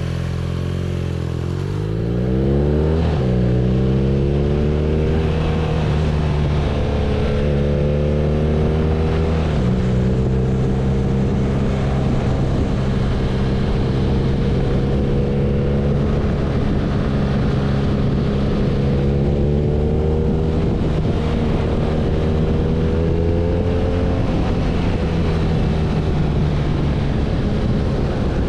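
BMW R nineT's boxer-twin engine under way. It eases off at first, then pulls hard with rising revs. About nine seconds in the revs drop in a step, like a gear change, and the engine then runs at a fairly steady speed with small throttle changes.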